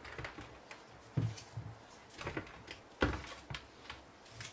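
Raw potatoes set down one at a time on a metal baking tray around a salt crust: several soft knocks a fraction of a second apart, the loudest about three seconds in.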